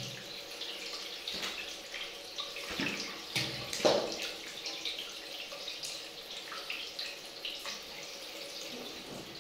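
Water spraying from a handheld shower head lying in a metal basin, a steady hiss and patter of water on metal. A few knocks and splashes come between three and four seconds in, the loudest about four seconds in.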